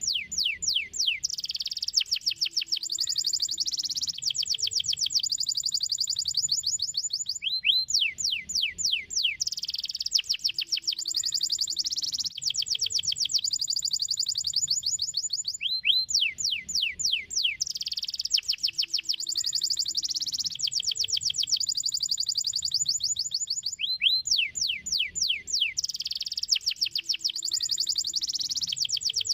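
Domestic canary singing: fast trills and rolls of rapidly falling whistled notes, the same phrase repeating about every eight seconds.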